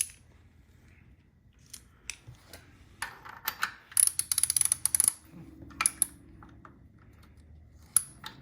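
Socket ratchet clicking in short bursts while a bolt is worked loose, with a dense run of rapid clicks about four seconds in and scattered single metal clicks and taps around it.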